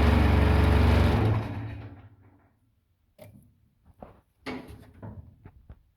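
Case 580D backhoe's diesel engine running, then shut off about a second in and winding down to a stop. A few light knocks and clunks follow, the loudest about four and a half seconds in.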